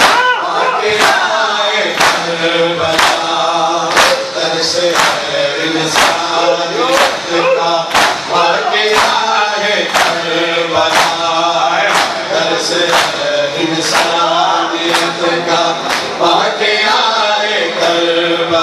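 A man chants a noha (Shia lament) into a microphone, with a crowd of male voices joining in. Sharp, even strikes about once a second keep the beat, typical of mourners doing matam, beating their chests with open hands.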